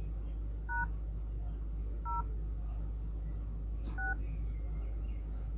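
Smartphone dialer keypad sounding DTMF touch tones: three short two-tone beeps, roughly one to two seconds apart, as #, 0 and 6 of the IMEI check code *#06# are tapped. A faint tap is heard just before the third beep.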